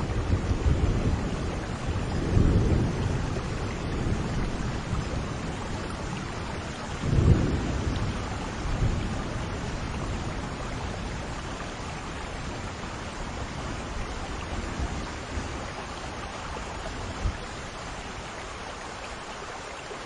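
Steady rain with rolling thunder: low rumbles in the first few seconds, a sharper thunderclap about seven seconds in, then the thunder dies away while the rain carries on.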